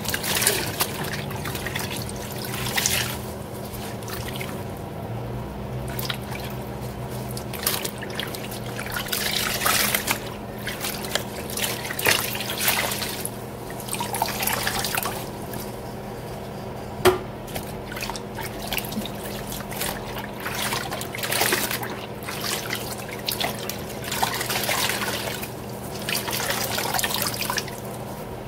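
Wet kitchen towels being rubbed, squeezed and sloshed by gloved hands in a stainless steel sink of soapy bleach water, in irregular swishes with trickling and dripping as the cloth is wrung. A single sharp tap partway through.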